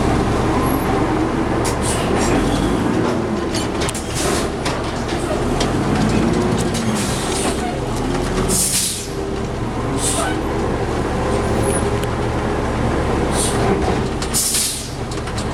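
A large engine running steadily, its pitch rising and falling at times, with short hissing bursts every few seconds.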